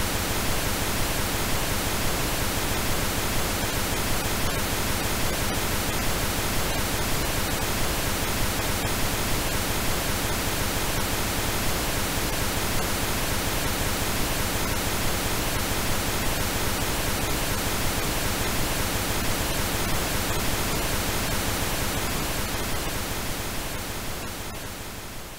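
Steady pink noise, even hiss with no tones or breaks, fading out near the end.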